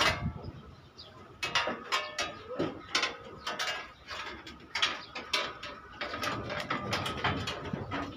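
Irregular metallic clicks and knocks as a sheet-metal headlamp panel is handled and fitted against a truck's front frame.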